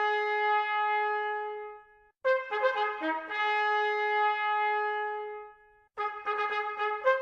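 Bugle call played solo: a run of short notes leading into a long held note that fades out, the same phrase played a second time, then a quick run of short notes near the end.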